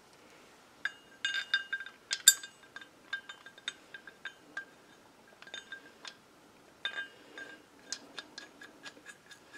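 Light metal clinks and taps as a steel bracket and its bolt are handled and fitted against a differential housing, with a cluster of sharper clinks about a second in. Near the end they turn into a run of small, fairly even ticks as the bolt is started by hand.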